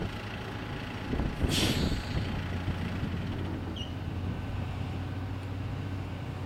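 Jet airliner's engines running at taxi power over a steady low hum, with a short hiss of air about one and a half seconds in.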